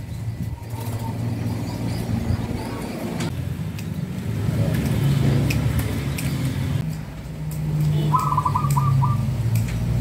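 Caged zebra doves (perkutut) calling, with a short rapid trill of notes near the end, over a low steady motor hum.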